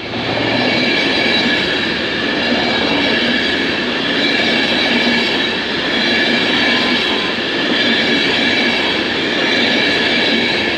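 Loco-hauled passenger train with Class 67 locomotive 67008 rolling past over the level crossing. Coaches' wheels run steadily on the rails with clickety-clack and a constant high-pitched ringing squeal above the rumble.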